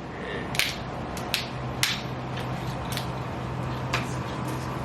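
Soda cans being handled for drinking: a scatter of about six sharp light clicks and taps over a few seconds, with a low steady hum underneath.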